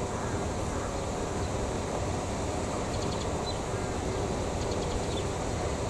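Steady outdoor background noise, a low rumble with a hiss over it and a few faint high chirps.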